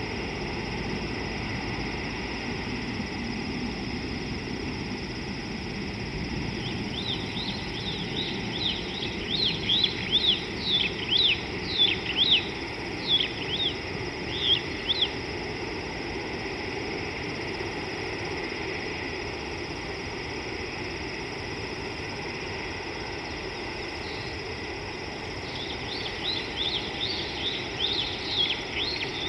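A bird gives quick, high, chirping notes in a busy run lasting several seconds, starting about seven seconds in. A second run starts near the end. Under it is a steady outdoor background hum.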